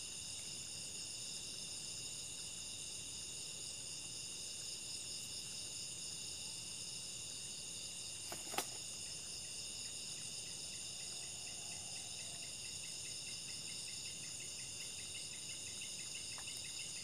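Steady night chorus of insects such as crickets, several high-pitched buzzing tones layered together, with one sharp click about halfway through and a fast pulsing call joining near the end.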